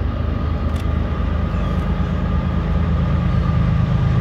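Diesel freight locomotive approaching, its deep engine rumble growing steadily louder.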